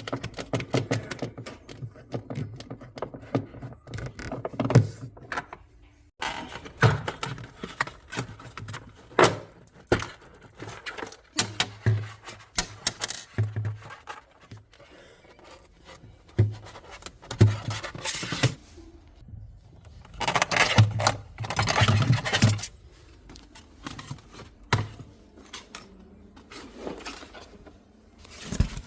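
Hands working on a refrigerator: many irregular clicks, knocks and scrapes of tools and plastic and metal parts being handled, with louder bursts of scraping and rattling now and then.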